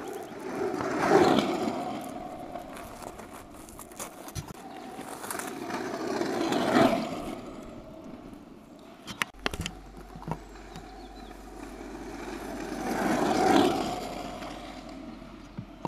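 Motor scooters going past one at a time, three times, each engine note rising as it approaches and falling away as it passes.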